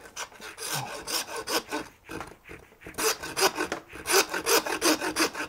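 Hand bone saw cutting through a lamb leg bone with back-and-forth strokes. The strokes are spaced out at first, pause briefly, then come quick and steady at about four a second from about three seconds in. The noise lasts only while the blade is in the bone and stops as soon as it is through.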